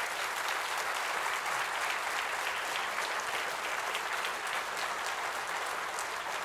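Lecture-hall audience applauding steadily: sustained clapping from many hands at the end of a talk.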